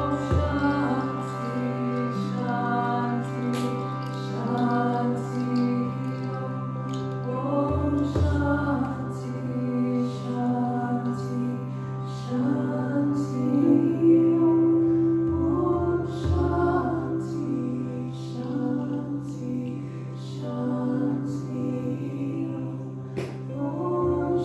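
A woman chanting a slow, wordless melody over a steady drone, with a frame drum struck in a slow, even beat.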